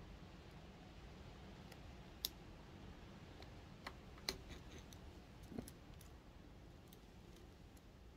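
Faint, scattered metallic clicks and taps from circlip pliers and a pit bike's kickstart shaft and gear being handled while a circlip is worked on. The sharpest clicks come about two and four seconds in, over a low steady hum of room tone.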